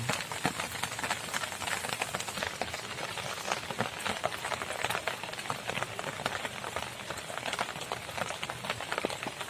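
Light rain falling, heard as a dense, irregular spatter of small ticks.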